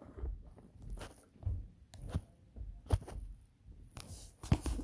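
Light taps and scuffs of small plastic Littlest Pet Shop figures being moved by hand on a wooden floor, a few sharp clicks among low handling rumble.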